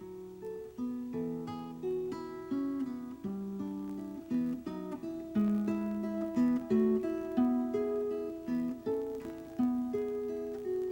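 Instrumental background music on an acoustic guitar: a melody of plucked notes, each ringing and fading before the next.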